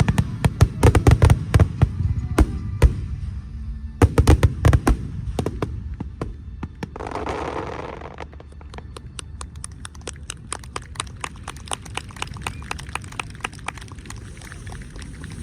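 Fireworks display: rapid volleys of loud shell bursts, then a long run of small crackling pops, with music from the show's loudspeakers underneath. A short rushing noise comes about seven seconds in.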